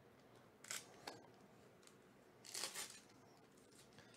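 Foil wrapper of a trading-card pack being torn open by hand: a short rip about two-thirds of a second in, then a longer, louder tear at about two and a half seconds.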